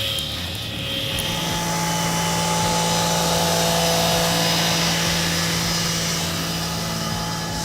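An engine running steadily, with a steady drone that sets in about a second in.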